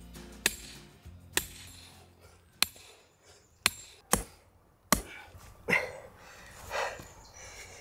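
Heavy hammer striking an old steel stake to drive a pilot hole into the ground: six sharp metallic clanks at uneven intervals over about five seconds, followed by two softer scuffing sounds.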